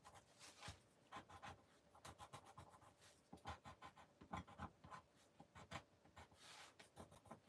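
Faint scratching of a coloured pencil on paper, rubbed over gouache paint on watercolour paper in quick runs of short strokes.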